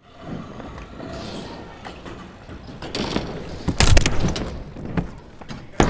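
A few sharp knocks and thuds over a noisy background, loudest in a quick cluster about four seconds in, with another knock near the end.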